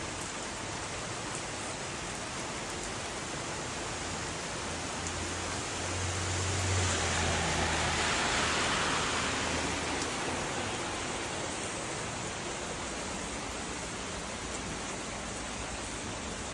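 Steady rain falling on a garden and street. About halfway through, a car drives past on the wet road: its tyre hiss and low rumble swell up and fade away over a few seconds.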